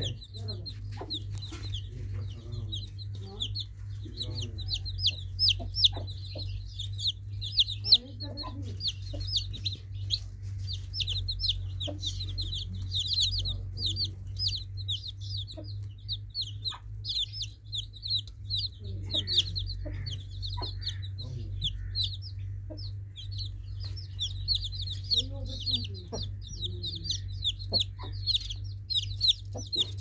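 Newly hatched chicken chicks peeping constantly: many short, high, downward-sliding peeps overlapping, with a few lower clucking calls now and then and a steady low hum underneath.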